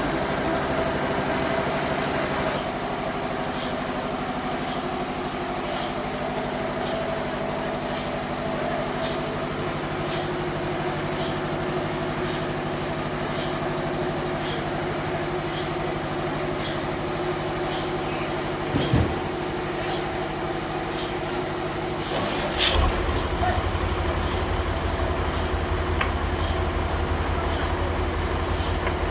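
Bandsaw sawmill running with a steady machine hum and a sharp tick repeating about once a second. Near the end a knock comes, and the low rumble grows louder after it.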